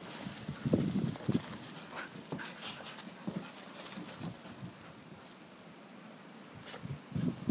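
Dogs playing in deep snow, panting, with short louder bursts of noise about a second in and again near the end.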